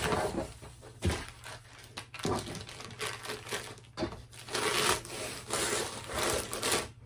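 Clear plastic sleeve rustling and crinkling as a rolled diamond painting canvas is worked back into it, in a string of rubbing swishes.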